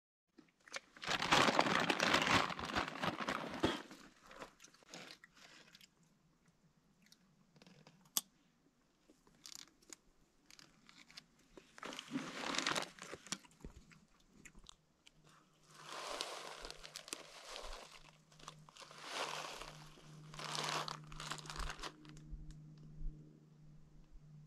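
Crunching and rustling in several bursts of a second or two each, the loudest near the start. A low steady hum comes in about two-thirds of the way through.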